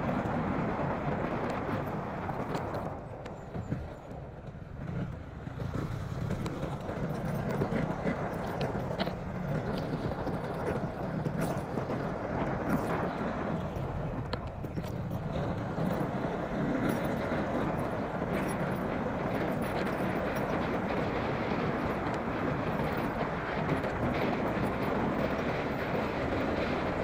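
Honda CB150R motorcycle being ridden on the road, its engine running under a steady rushing noise. The noise eases for a couple of seconds about three seconds in.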